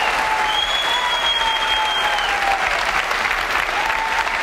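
Large auditorium audience applauding steadily, with cheers and a long high whistle over the clapping from about half a second to two seconds in.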